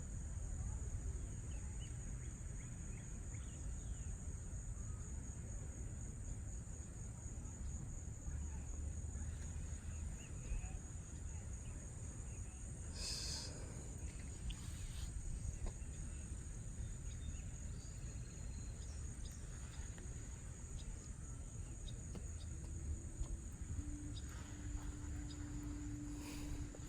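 Steady high-pitched drone of insects over a low rumbling background, with a couple of faint clicks and a faint low hum near the end.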